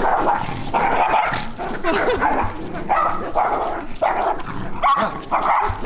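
Dogs barking at each other in a run of short barks, about one to two a second: a leashed Bichon frise squaring off with a larger dog met on the street.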